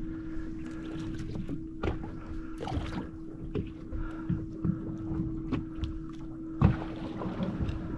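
Fishing boat idling at sea: a steady engine hum over a low rumble, with scattered knocks and clatter on board, the loudest a thump near the end.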